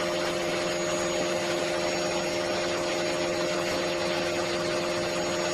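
Vacuum cleaner running steadily, a constant whine of several even tones over rushing air.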